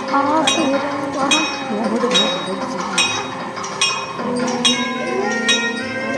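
A temple bell rings over and over with a strike a little under every second, each stroke ringing on into the next, with people's voices underneath. The bell is said to ring by itself during the evening aarti.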